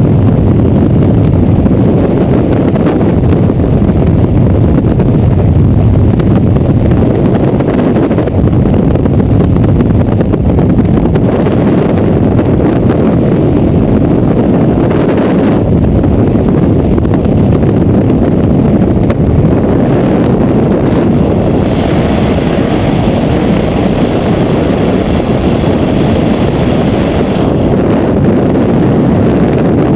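Freefall wind rushing over the camera's microphone during a skydive: a loud, steady, deep roar of air with no let-up.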